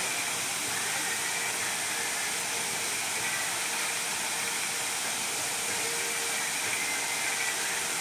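Steady hiss and splash of a lake fountain's many water jets spraying and falling back onto the water.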